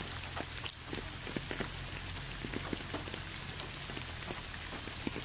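Soft, steady rain falling, with scattered single drops ticking through it.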